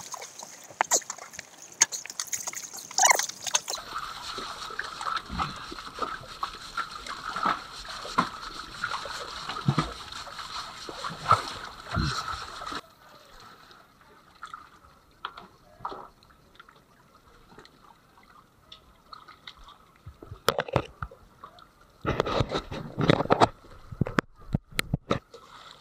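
Water splashing and sloshing close by as someone in the water scrubs algae off a boat's hull. The splashing is busy for the first half, then quieter, with another burst of splashes near the end.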